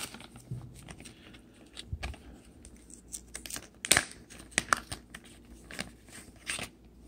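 Clear plastic packaging bag crinkling and crackling as it is handled, in irregular sharp crackles, the loudest about four seconds in.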